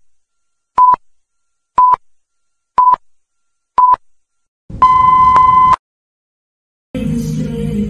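Film-leader countdown beeps: a short, steady high beep once a second, four times, then a longer beep of about a second with a rumbling noise under it at the zero. After a second of silence, music starts near the end.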